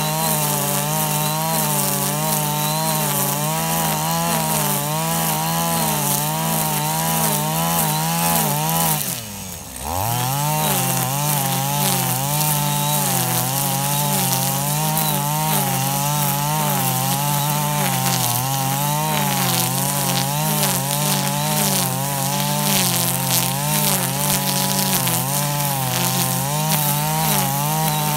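KAAZ URP260AL-TB26 brush cutter's 25cc two-stroke engine running at high revs while cutting grass, its pitch wavering as the blade meets the grass. About a third of the way in, the engine speed drops sharply for about a second and then picks back up.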